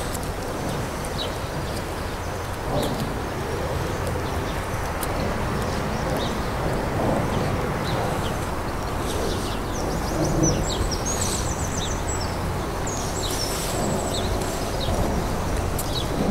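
Small birds chirping in short, high calls, with a quick run of chirps about eleven seconds in, over a steady low rumble.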